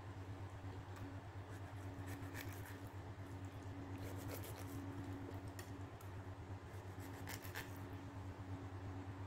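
Kitchen knife blade scraping along the skin of a raw whole fish, scaling it, in short scratchy strokes at irregular intervals over a steady low hum.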